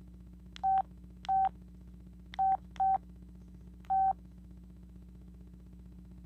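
Sanyo VI-2300 flip phone keypad beeps: five short single-pitch beeps, each with a faint key click, as its buttons are pressed at an uneven pace, two of them close together just before the middle.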